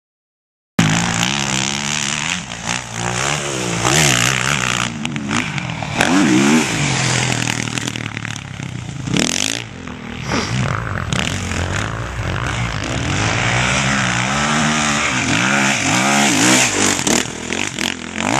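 Motocross motorcycle engine revving, its pitch rising and falling again and again as it rides the track. It starts abruptly a little under a second in, after silence.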